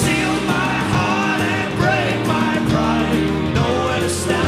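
Live folk-rock band playing loudly: drums struck hard under strummed guitars and bass, with voices singing over the top.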